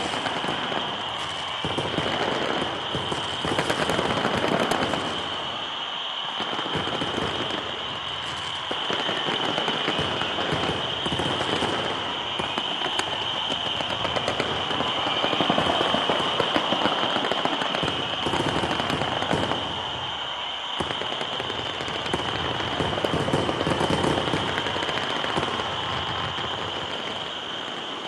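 Large fireworks display: dense, continuous crackling and popping from many shells and fountains, swelling and easing in waves, with a steady high-pitched tone running underneath.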